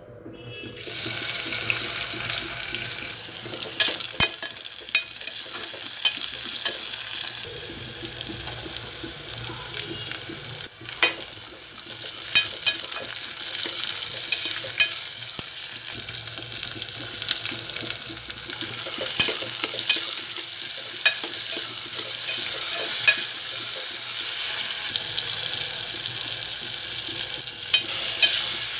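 Chopped onion, capsicum and other vegetables sizzle in hot oil in an aluminium pot while a spoon stirs them, knocking and scraping against the pot. The sizzling starts about a second in and keeps up steadily.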